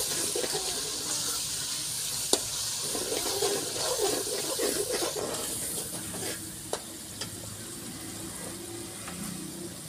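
Onion, tomato and yogurt masala sizzling in oil in a large aluminium pot while a steel ladle stirs and scrapes through it, with a few sharp knocks of the ladle on the pot, the loudest about two seconds in. The sizzle is the masala being fried down (bhuna) before the spices and chickpeas go in.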